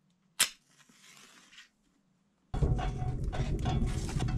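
A single sharp click and a short faint hiss, then from just past halfway a wood stove fire burning with its door open, a steady rushing rumble with crackle as a split log is pushed into the firebox.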